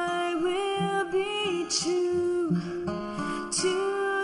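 Background music: an acoustic guitar playing an instrumental passage of a song, with no words sung.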